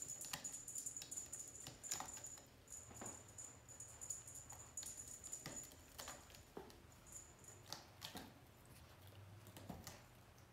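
Faint, scattered light clicks and taps of kittens' paws and claws on a cat bed and carpet as they play. Behind them is a thin, high steady tone that breaks off and comes back.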